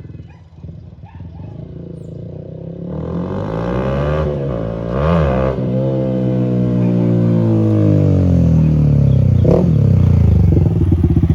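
Yamaha R15's single-cylinder engine through an aftermarket Jeskap exhaust, running low and steady, then revving up about three seconds in, its pitch rising and falling as the bike is ridden.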